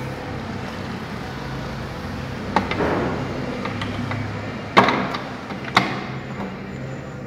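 Three sharp knocks and a short scrape as hands take hold of a plastic household sewing machine and its front accessory table and shift it on the worktable. The second knock is the loudest, and a low steady hum runs underneath.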